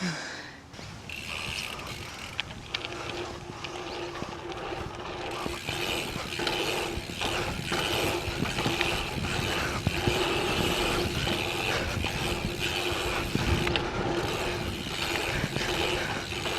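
Mountain bike riding down a dirt trail: the rear freehub buzzing steadily as the rider coasts, with chain rattle and knocks from bumps in the trail, getting louder over the first few seconds.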